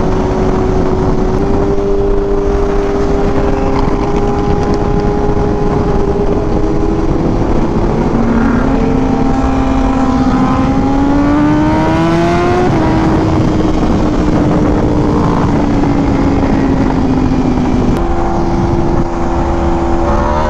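Sport motorcycle engine under way with heavy wind noise on the microphone. It holds a steady note, then accelerates with rising pitch from about the middle. It drops a step as it shifts up, eases off with slowly falling pitch, and steps back up near the end.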